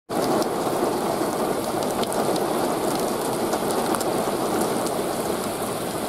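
Heavy thunderstorm rain pouring steadily onto pavement, a dense even hiss with scattered sharp ticks of individual drops.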